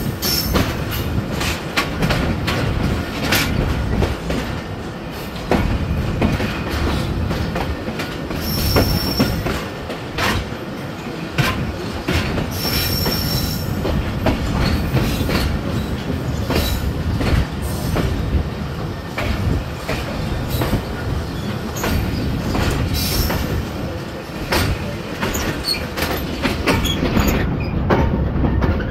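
Passenger train wheels rolling over rail joints and points, a steady low rumble with irregular sharp clicks and clanks, heard from an open coach doorway. Two short high wheel squeals come about nine and thirteen seconds in.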